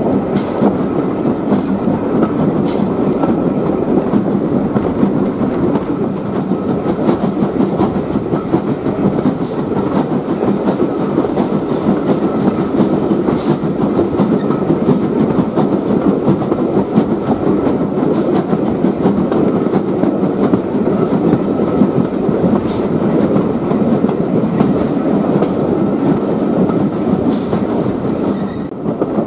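Heritage railway carriage running along the line, heard from on board: a steady rumble of wheels on the rails, with a few faint clicks.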